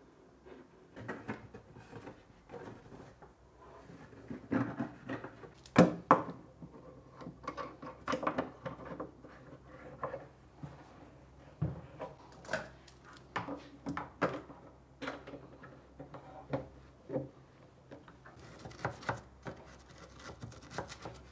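Clamps being fitted around the edge of a cello body and screwed tight to glue the top back onto the ribs: irregular clicks, knocks and small rattles of the clamp parts against the wooden instrument, the loudest knock about six seconds in.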